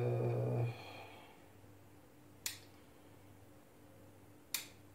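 Bonsai pruning shears snipping Chinese elm twigs: two sharp snips about two seconds apart. A brief bit of the man's voice comes just at the start.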